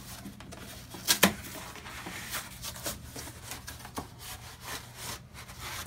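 Corrugated cardboard mailer being opened and handled on a wooden tabletop: rustling and scraping of the cardboard, with a few sharp knocks, two close together about a second in and another near four seconds.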